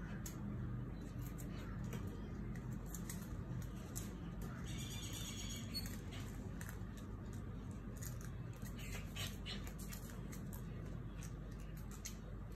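Faint outdoor ambience among trees: scattered light clicks and rustles over a steady low background, with one short, high, chirping call about five seconds in.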